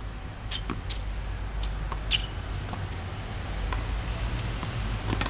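Outdoor tennis-court ambience between points: a steady low rumble with scattered sharp clicks and taps.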